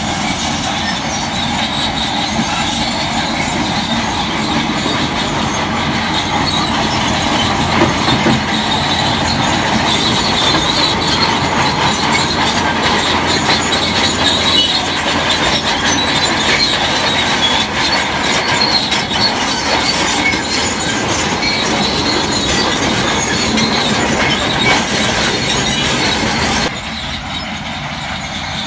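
Heavy crawler earthmoving machine running, its steel tracks squealing and clattering continuously over a dense mechanical din. The sound drops suddenly to a lower level about two seconds before the end.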